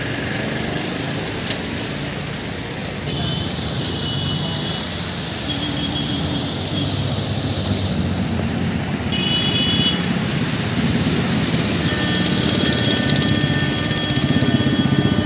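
Motor vehicle engine running steadily amid road traffic, with a steady high hiss; the sound gets louder about three seconds in.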